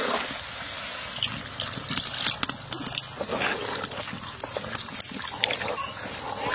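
Water added to frying meat and spices in a hot kadai, sizzling and bubbling with a spoon scraping and knocking against the pot.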